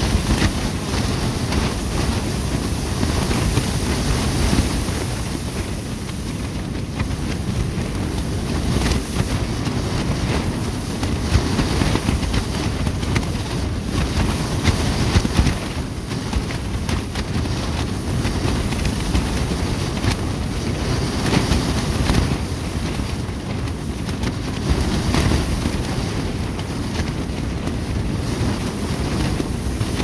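Clear plastic sheeting of a pole tent crackling and flapping as gusty wind buffets it, over a heavy rumble of wind on the microphone.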